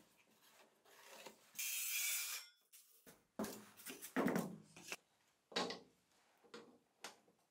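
Thin wooden strips being handled: a brief scraping slide of wood over wood about two seconds in, then louder rubbing and clacking of the strips against each other and the bench, and a few short knocks as wood is set down near the end.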